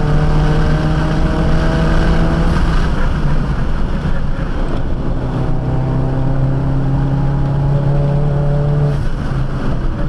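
Ford Focus RS's turbocharged 2.3-litre four-cylinder pulling hard on track, heard from inside the cabin. The engine note climbs steadily, breaks off about two and a half seconds in, climbs again, and drops away near the end.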